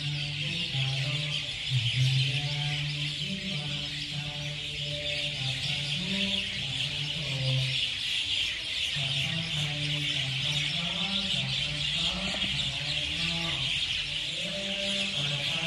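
A dense chorus of many birds chirping without a break, over slow Buddhist prayer chanting held on a few level notes that step up and down.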